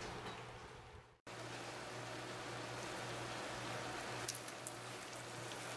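Scrambled eggs and hash browns sizzling as they fry in a large skillet. The sizzle fades and cuts out briefly about a second in, then comes back steady, with a few light clicks of a spatula against the pan near the end.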